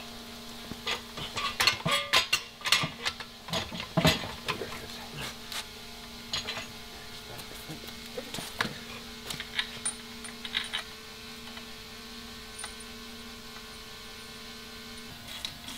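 Metal clanks and knocks as a Porsche transmission is handled and fitted onto the bell housing of an LS3 V8 engine. They are densest in the first few seconds and thin out by about eleven seconds in, over a steady electrical hum.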